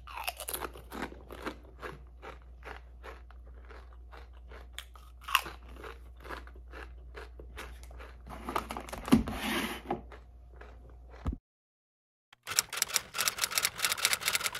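Close-up crunching and chewing of Pringles potato crisps: a bite, then steady mouth-crunches a few times a second for about eleven seconds. After a second of silence near the end, a fast run of typewriter-style clicks.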